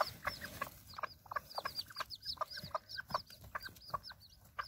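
Newly hatched bantam chicks peeping in rapid short high calls, several a second, mixed with soft low clucking from a brooding bantam hen on the nest.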